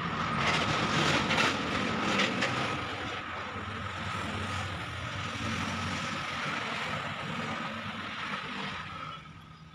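Steady drone of a running engine with a faint whine, fading away near the end.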